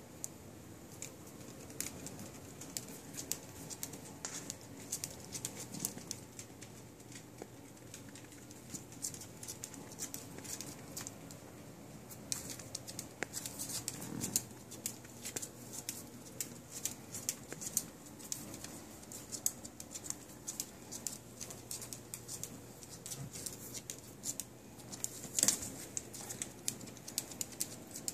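A small puppy's claws clicking and pattering irregularly on a laminate floor as it walks, the clicks coming thicker from about twelve seconds in.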